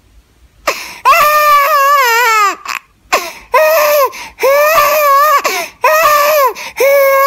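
Loud, high-pitched wailing cries that start about a second in: about five long, wavering wails with short breaks between them.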